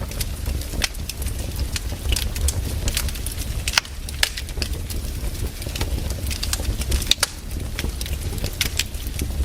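Firewood burning and crackling, with irregular sharp pops and snaps over a low steady rumble.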